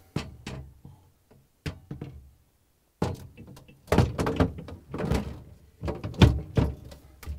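Refrigerator shelf knocking and clattering against the liner as its rear hooks are fitted into the cutouts. There are a few light taps about a second in, then a run of sharp knocks over the last four seconds.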